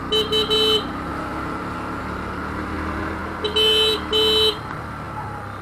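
Bajaj Pulsar NS125 motorcycle riding slowly, its engine running steadily, with two quick bursts of horn beeps, one right at the start and another about three and a half seconds in; the beeps are the loudest sound.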